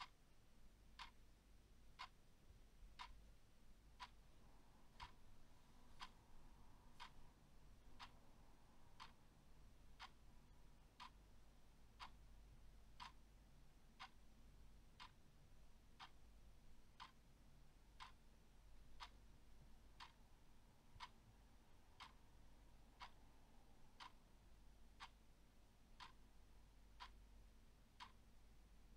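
Clock ticking faintly and evenly, exactly once a second, over a faint steady low hum.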